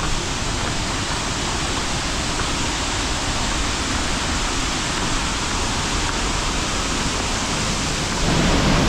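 Waterfall in heavy flow, a steady rush of falling water, a little louder near the end.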